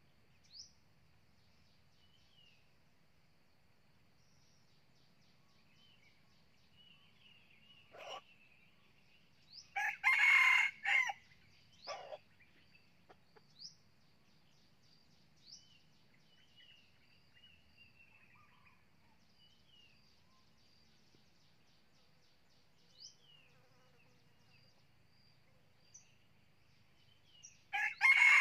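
Red junglefowl rooster crowing: a short, clipped crow about ten seconds in and another starting near the end. Faint chirps of small birds in between.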